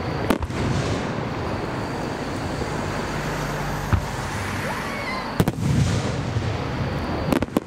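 Aerial fireworks shells bursting: sharp bangs about a third of a second in, near four seconds and at about five and a half seconds, then a quick cluster of bangs near the end, with low rumbling echoes rolling between them.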